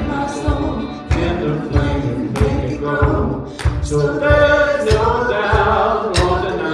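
A live contemporary worship band playing a song. Sung vocals run over acoustic guitar, electric bass and a drum kit keeping a steady beat.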